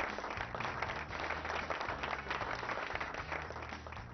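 Studio audience applauding, a dense steady patter of many hands clapping, over low bass notes from a backing music track. The applause dies away near the end.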